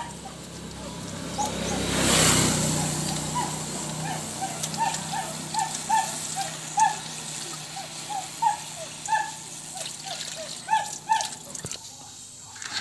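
An animal gives short calls over and over, about two a second. About two seconds in a rushing noise swells and fades, and a steady low hum runs beneath.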